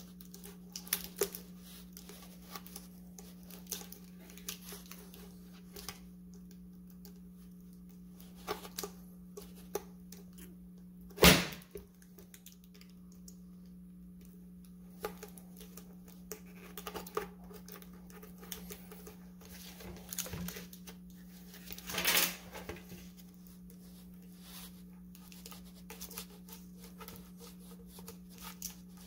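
A knife cutting through a rubber radiator hose: irregular small scrapes and clicks as the blade works through the rubber, trimming the new hose to length. There is a sharp knock about eleven seconds in, the loudest sound, and another short burst of noise around twenty-two seconds, over a steady low hum.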